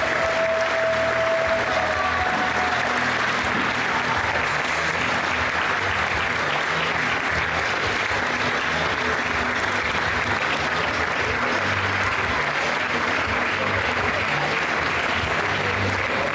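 Wrestling crowd applauding and cheering steadily after the match's winning pinfall.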